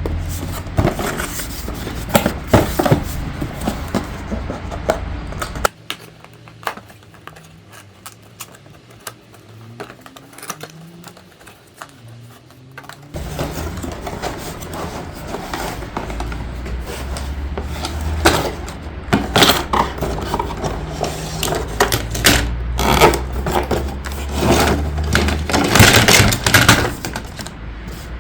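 Hard plastic toy parts being handled, with many irregular clicks, knocks and scrapes. There is a quieter stretch of lighter handling in the middle.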